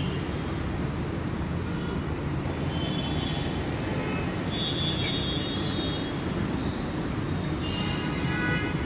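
Steady low background rumble with a few faint, brief high-pitched tones scattered through it.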